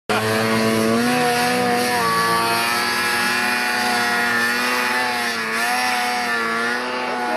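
Snowmobile engines running steadily, their pitch rising and falling slowly with the throttle.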